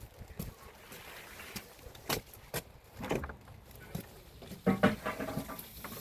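Footsteps and scattered knocks and taps while walking into a greenhouse, with a short pitched creak about five seconds in.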